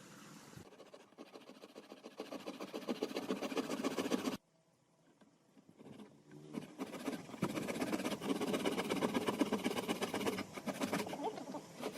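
A fast run of scratchy strokes from hand work on wood. It breaks off abruptly about four seconds in and starts up again about two seconds later.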